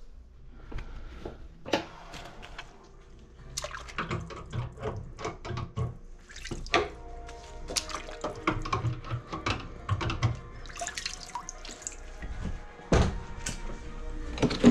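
Water splashing and sloshing in a stainless steel double kitchen sink that is full of standing water because its drain line is plugged with grease, as gloved hands work in it. Scattered knocks and clunks run through it, with a louder thump near the end, and music plays in the background.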